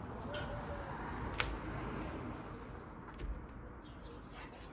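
Outdoor ambience through an open window: a steady low rumble, a faint bird call near the start, and a single sharp click about a second and a half in.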